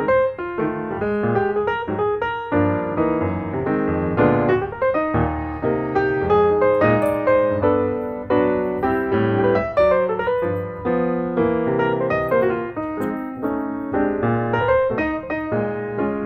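Background piano music: a steady run of notes with chords.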